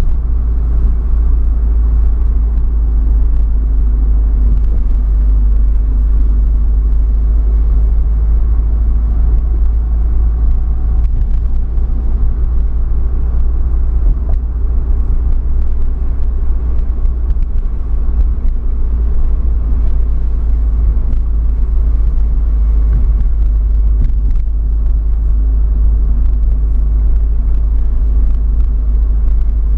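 Steady low rumble inside the cabin of a 2013 Subaru WRX driving slowly: its turbocharged 2.5-litre flat-four engine running at low revs, with road noise.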